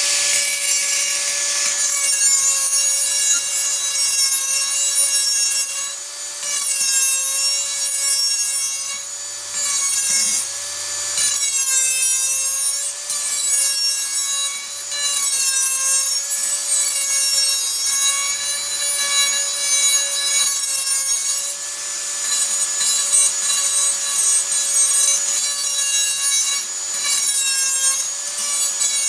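High-speed electric grinder running with a steady high whine while sharpening the steel edge of a banjo hoe. Its pitch sags and recovers each time it is pressed against the metal, over a gritty grinding rasp.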